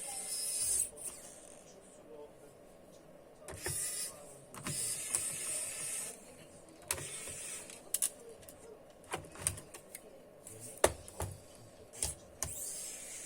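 Scattered sharp clicks and taps with short bursts of scraping: plastic laptop casing and parts being handled and slid apart during disassembly.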